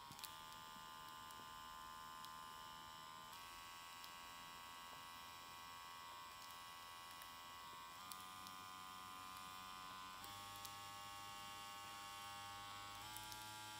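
FK Irons Xion S rotary permanent-makeup machine motor running, a faint steady electric hum. Its pitch steps up a few times as the battery pack's voltage is raised in half-volt steps.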